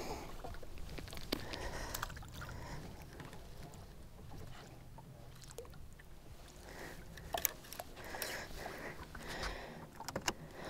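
Quiet fishing-boat ambience: water lapping at the hull under a steady low rumble, with a few light knocks.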